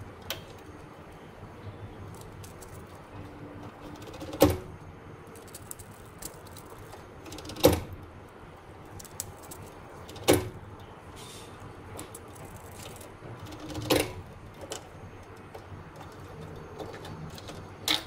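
Sharp, short clicks every few seconds, about six in all, as wire connectors are pulled off and pushed onto a furnace control board during a board swap.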